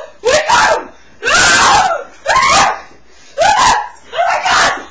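Loud, repeated screaming, one short cry about every second, each rising then falling in pitch and overloading the webcam's microphone.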